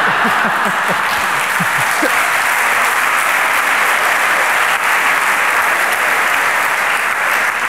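An audience applauding, a dense, even clapping that holds steady, with a few voices heard in the first couple of seconds.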